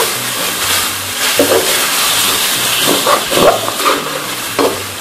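Masala of tomatoes, green chillies and yogurt sizzling in hot oil in a steel kadai, with a spatula stirring it and scraping the pan several times.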